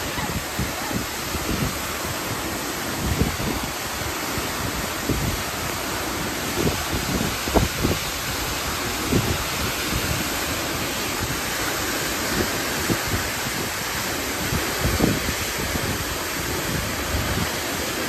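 Tall waterfall's steady rush of falling water, with gusts of wind buffeting the microphone in short low thumps.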